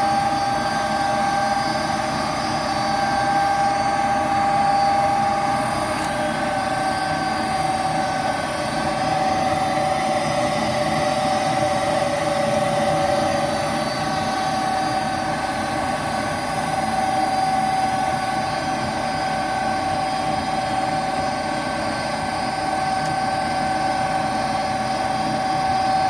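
A gas furnace's draft inducer motor running with a steady whine while the furnace goes through its ignition sequence.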